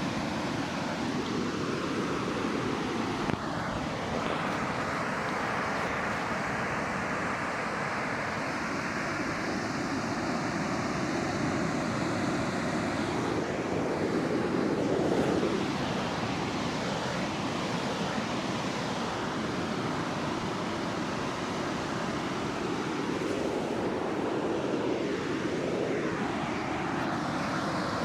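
Pacific Ocean surf breaking and washing up the beach, a steady rushing that swells about halfway through.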